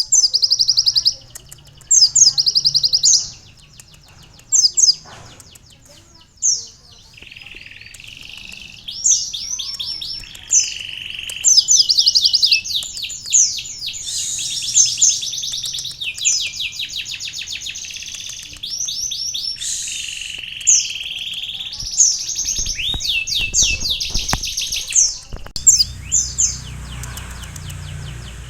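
A sunbird (konin) singing a long run of rapid high trills and warbles, its song filled with canary-style phrases. A low rumble sits under the song in the last few seconds.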